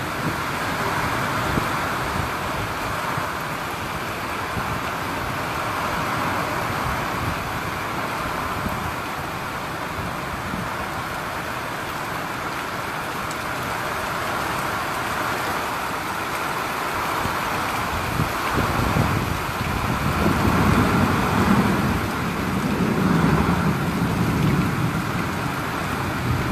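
Heavy rain pouring steadily in a severe thunderstorm, with a louder, deeper rumble swelling up in the last several seconds.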